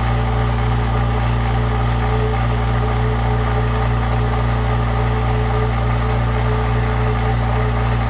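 California Air Tools ultra quiet air compressor running steadily: its induction motor drives the two-piston pump to fill the 10-gallon tank, with the pressure building toward cut-off. A constant hum with no change in pitch or level.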